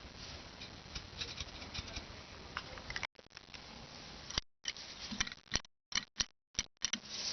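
Irregular light clicks and taps from brake pads and caliper parts being handled. The sound cuts out to silence several times in the second half.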